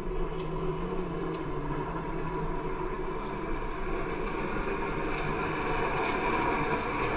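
Diesel farm tractor fitted with a front snow blade, its engine running steadily and growing louder as it approaches.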